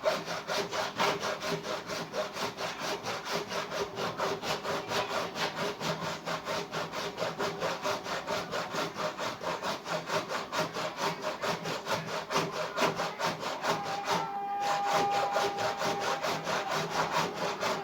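A saw cutting through the sealed plastic tub of an Ariston automatic washing machine, opening it to get at the drum bearings. It goes in rapid, even strokes, about three to four a second, and near the end a steady squeal joins in for a few seconds.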